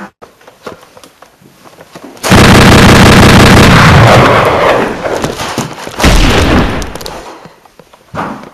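Two loud blast sound effects. The first starts suddenly about two seconds in, holds at full loudness for a couple of seconds, then dies away. The second hits about six seconds in and fades out.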